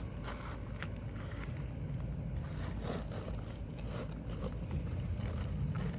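Scattered short scrapes and clicks of work under an asphalt shingle to free a stuck roofing nail, over a steady wind rumble on the microphone.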